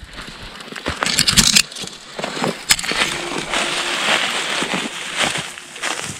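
Footsteps and rustling through dry leaf litter and brush on a woodland slope, with irregular crackles and snaps of twigs and leaves underfoot.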